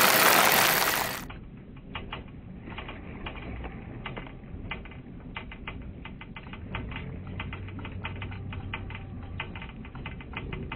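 Heavy rain pouring down with a loud, even hiss, cut off suddenly about a second in. After that, a much quieter background with rapid, irregular sharp clicks, several a second.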